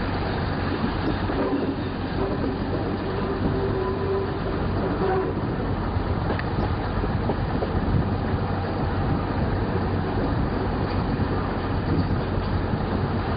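Running noise of a regional passenger train under way: wheels on the rails and the carriage rumbling, heard from inside the carriage. Steady throughout, with a constant low hum under it.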